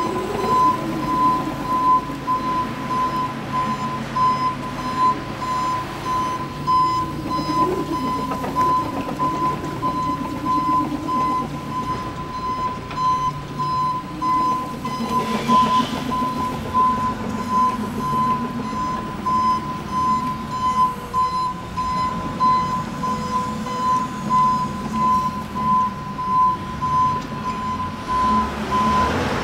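Backup alarm of a CAT Mitsubishi FBC18N 36-volt electric forklift beeping steadily at one pitch while the forklift reverses. The beeping stops shortly before the end.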